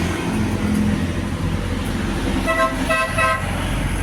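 A vehicle horn sounds three short toots in quick succession, about two and a half seconds in, over a steady low hum of passing traffic.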